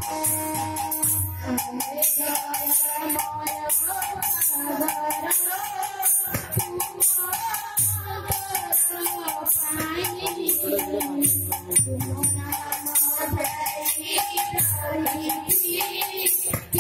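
Live stage music: a shaken or jingling rattle-type percussion keeps a steady, even beat under a melodic instrument playing held and moving notes.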